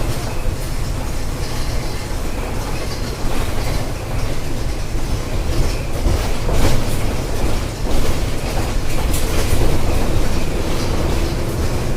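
Volkswagen Volksbus 17.230 EOD city bus running on the road, heard from inside: a steady low engine and road drone, with body panels and fittings rattling and clicking throughout.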